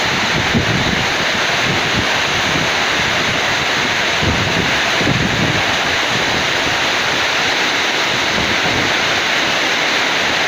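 Heavy rain pouring down steadily in a windstorm, with gusts of wind buffeting the microphone about half a second in and again around four to five seconds in.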